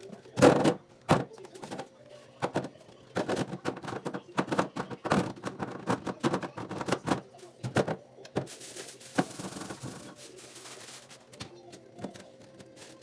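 Irregular clattering and knocking of containers, shelves and other objects being handled while a refrigerator is cleaned, with a short hiss about eight and a half seconds in.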